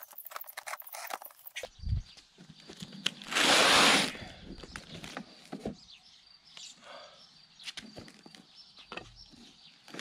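Cardboard shipping box being opened and unpacked by hand: a low thump about two seconds in, a loud rasp of cardboard lasting about a second, then scattered rustles and light knocks.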